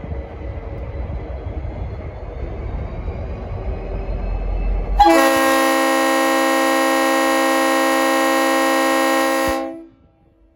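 A diesel locomotive rumbles low for about five seconds. Then the rumble cuts off and a Leslie RS5T five-chime air horn sounds one loud, steady chord for about four and a half seconds, stopping suddenly.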